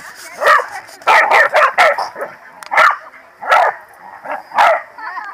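Corgi barks: about eight short, sharp, high barks, a quick run of four about a second in, then single barks roughly a second apart.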